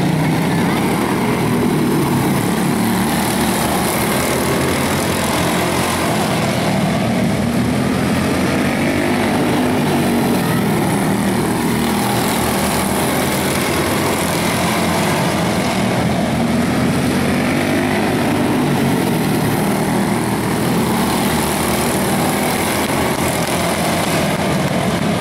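Several quarter midget race cars' single-cylinder Briggs & Stratton Animal engines running flat out together in a pack, a continuous buzzing drone that swells and eases as the cars come past and move away around the oval.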